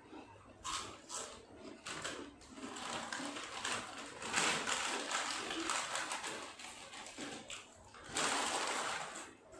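Potato chips crunching in irregular bursts as two people chew fast with full mouths, with foil chip packets rustling as hands dig into them.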